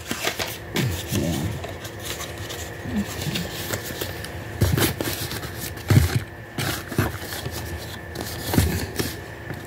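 Small cardboard product boxes being handled and moved: scraping and rustling of cardboard with several sharper knocks, the loudest about halfway through.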